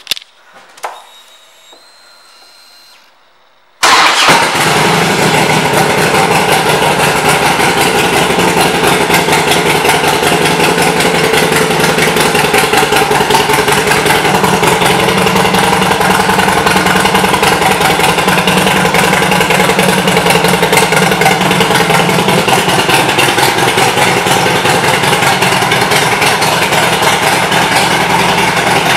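A 2003 Harley-Davidson Screamin' Eagle Road King's V-twin engine starts about four seconds in, after a few faint clicks, and then idles loudly and steadily.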